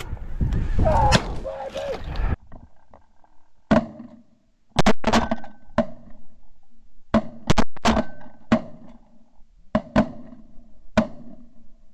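Shotgun shots heard through a barrel-mounted Shotkam camera: about a dozen sharp cracks, irregularly spaced and some in quick pairs, each with a short ringing tail. They follow a couple of seconds of loud, rough noise.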